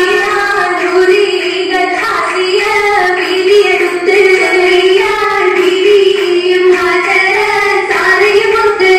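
Girls' voices singing an Oppana song, the Mappila wedding song that accompanies the dance, in one continuous flowing melody.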